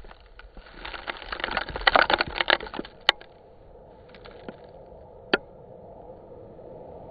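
Slowed to 30% speed, the aftermath of a Cesaroni K820 high-power rocket motor's liftoff at the pad: a dense run of crackles and pops for about three seconds as the exhaust blast and dust sweep over the pad camera. Then a low steady hiss, with single sharp pops about three and five seconds in.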